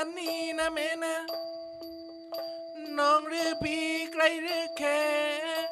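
Nang talung shadow-puppet ensemble music: a wavering, pitch-bending melody over a steady held drone, with a low drum stroke a little after half a second and another about three and a half seconds in.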